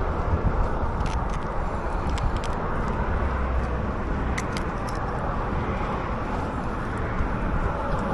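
Steady rumble of road traffic and wind noise, with a few faint light clicks scattered through it.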